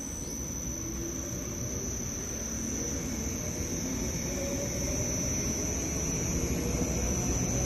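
300-litre double sigma blade mixer running under test, its two sigma blades turning forward and the bottom discharge screw turning: a steady machine drone with a thin high steady whine above it, slowly growing louder.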